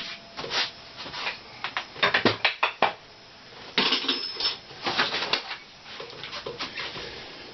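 Irregular clinks, clicks and knocks of small metal hardware and tools being handled while a clamp is fitted. They come in two clusters, one about two seconds in and a busier one around four to five seconds in.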